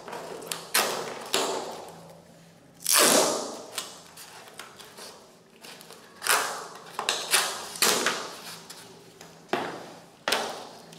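Grey duct tape being pulled off the roll and torn in several short rasping rips, the strips pressed down onto foam insulation board.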